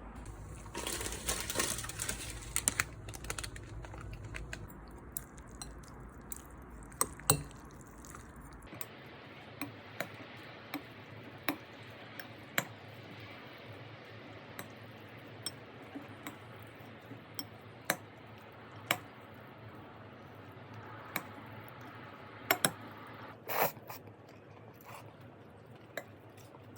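Scattered clinks and taps of dishes and cutlery, with a rustling noise for the first few seconds.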